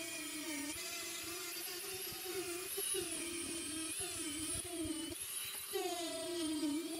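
Hand-held rotary tool spinning a coarse silicon carbide rubberized abrasive point against an opal, its motor whine wavering up and down in pitch as the point works the stone.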